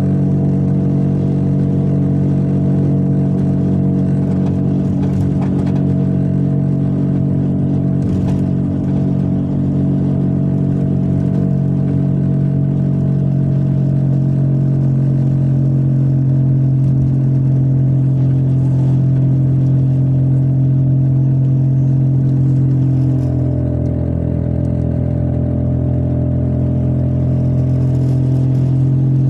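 Car on the move with a steady droning hum that holds one pitch, shifting slightly about 23 seconds in: the abnormal noise that grew louder over two months and was traced to a worn hub bearing.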